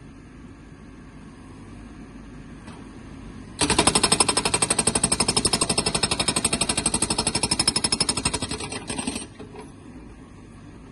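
Backhoe loader engine running, then about three and a half seconds in a GB GBN90TL hydraulic breaker starts hammering in rapid, even blows. It stops after about five and a half seconds, leaving the engine running.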